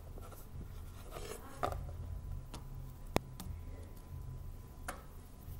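Quiet handling sounds over a low steady hum: a dry-erase marker writing on a small whiteboard, then a few light taps and one sharp click about three seconds in as crackers are picked up from a wooden table.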